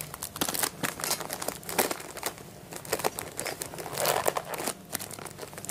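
Plastic food wrappers crinkling and rustling as they are handled and unwrapped, a dense run of quick crackles.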